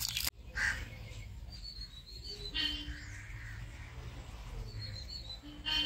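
Birds calling in the open air: a few short high chirps and a couple of harsher, caw-like calls.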